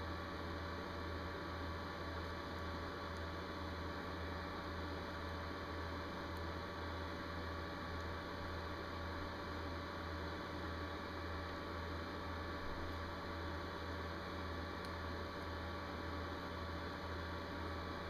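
Steady low electrical hum with a faint even hiss, unchanging throughout.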